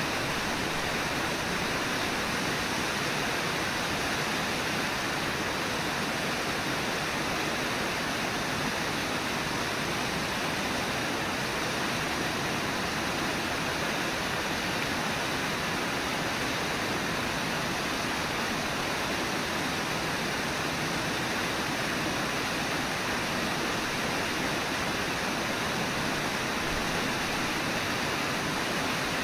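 Steady rush of river water pouring over and below a waterfall, an even wash of noise that does not change.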